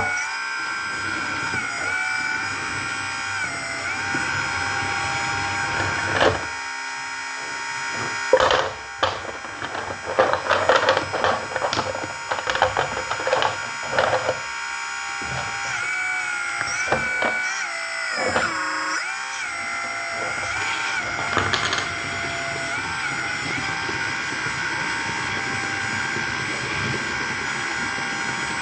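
Whine of a small RC model's electric motors and hydraulic pump, its pitch stepping up and down several times as the motors change speed and load. In the middle there is a stretch of irregular clicking and scraping.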